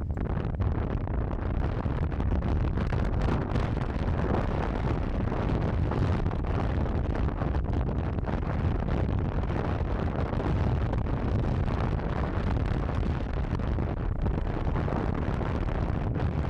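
Steady wind rush on the microphone of a scooter being ridden at cruising speed, with the Vespa GTS 300's engine and road noise blended underneath.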